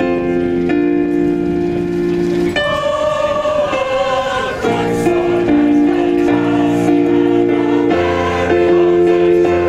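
Community choir singing a slow song in long held chords that change every second or so.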